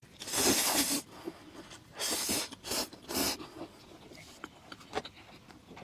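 Four short scraping noises in the first three and a half seconds, the first and longest lasting nearly a second, followed by a few faint clicks.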